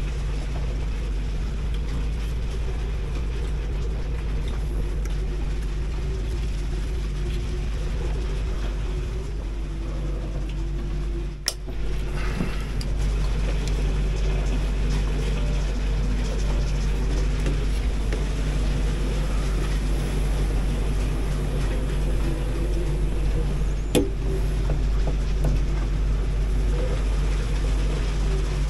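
Steady low motor hum, like an engine running, continuous apart from a brief drop-out about 11 seconds in and a single click about 24 seconds in.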